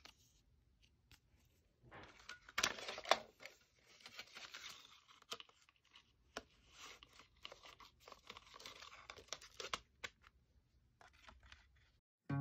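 CD booklet paper rustling and sliding against a plastic jewel case as it is tucked into the front cover, with two sharp plastic clicks about three seconds in and a few light clicks near the end.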